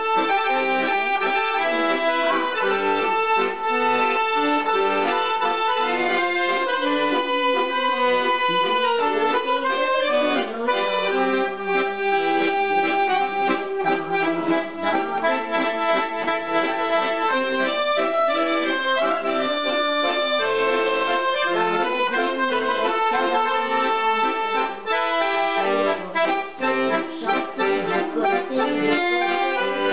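Piermaria piano accordion played solo: a continuous tune with several notes sounding together, the reeds held and changing note without a break.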